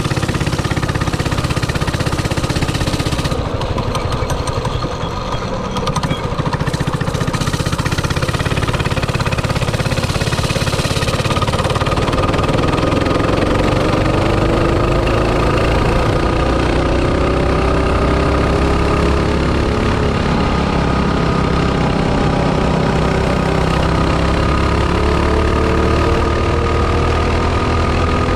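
Mini bike's small single-cylinder engine running hard on a test pass, with a freshly enlarged main jet in its 22 mm carburetor after running lean. The pitch climbs as it picks up speed partway through and again near the end, over steady wind and road noise.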